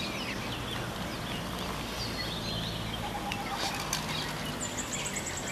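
Birds chirping over steady outdoor background noise, with a brief rapid high trill near the end.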